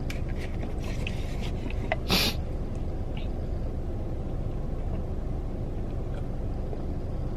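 Steady low background rumble, with a few light clicks in the first second and one brief rustle about two seconds in.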